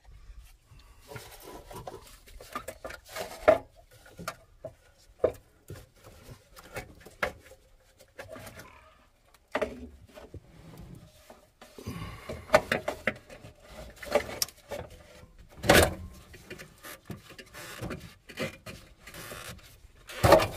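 Air cleaner being taken off a carburetor by hand: irregular clicks, light metal knocks and rustling of parts being handled, with a sharper knock about three quarters of the way through and another near the end.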